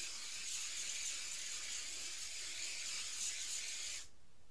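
Aerosol spray can releasing one long continuous hiss that stops suddenly about four seconds in.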